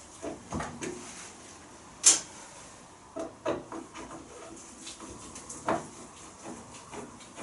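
Irregular handling knocks and clicks of hand work on the hinged side window of a classic Mini, with one sharp click about two seconds in.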